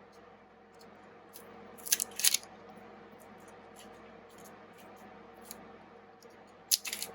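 Handling noise: a few sharp clicks and rustles about two seconds in and again in a cluster near the end, over a faint steady hum.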